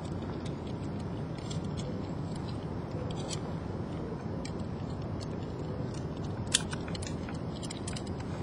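Scattered small metallic clicks and ticks as the rope and hardware of a Capital Safety R250 rescue-descent device are handled, with one sharp click about six and a half seconds in. Under them runs a steady low rumble of wind on the microphone.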